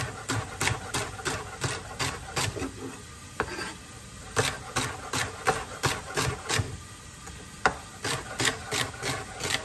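Chef's knife chopping celery stalks on a wooden cutting board: quick repeated knocks of the blade hitting the board, about two to three a second, in runs with short pauses.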